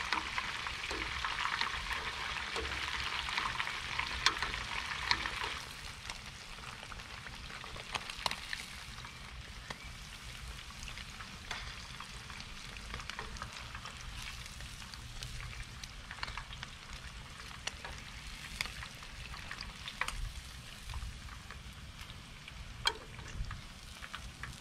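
White bass and its roe, coated in fish fry, frying in hot oil: a steady sizzle with scattered pops and crackles. The sizzle is louder for the first five seconds or so, then settles quieter.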